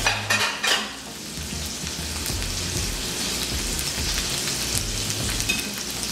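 Fish slabs frying in a pan on a gas hob: a steady sizzle, with two short clinks about half a second in.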